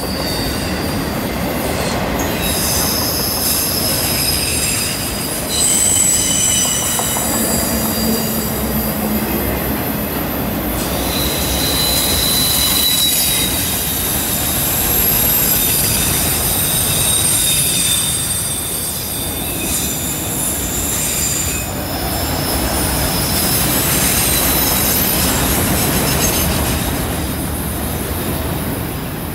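Freight train cars rolling past on a curve: the steel wheels squeal in several high, steady tones that come and go every few seconds over a continuous rumble of wheels on rail. The squeal comes from the wheels grinding through the curve.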